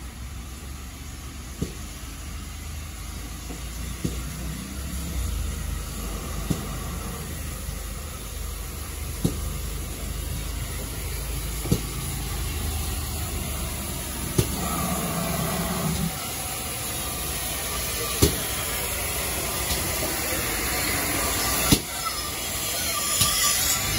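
Steam locomotive drawing slowly toward the platform, a low rumble that grows louder as it nears, with a sharp click every two to three seconds and a hiss of steam.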